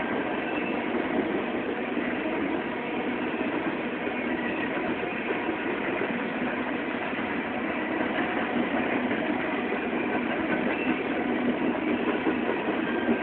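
BNSF coal train rolling past, its wheels on the rails making a steady, continuous noise.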